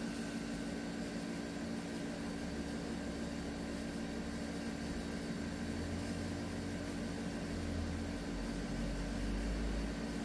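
A steady machine hum with an even hiss, and a deeper rumble that comes and goes.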